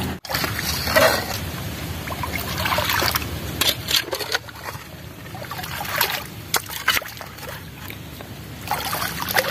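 Shallow ditch water running, with repeated splashes and sloshes every second or two as a hoe scrapes mud from the stream bed into a woven bamboo sieve held in the water.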